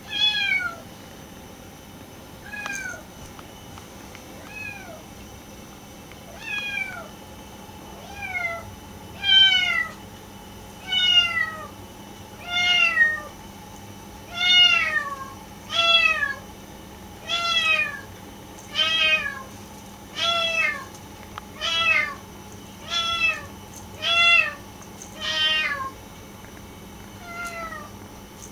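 Maine Coon kitten meowing over and over, about eighteen high-pitched calls that each fall in pitch, roughly one every second and a half. The calls are louder through the middle stretch and fainter near the end.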